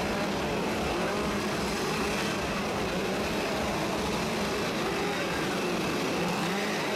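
Several chainsaws revving up and down over and over, their engine pitches rising and falling and overlapping without a break.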